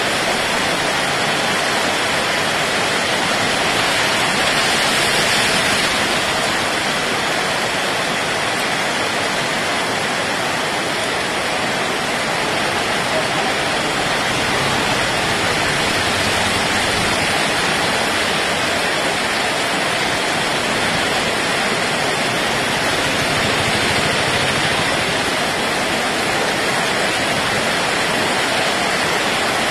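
Heavy cyclone rain pouring down in a dense, steady hiss onto a wet road and trees.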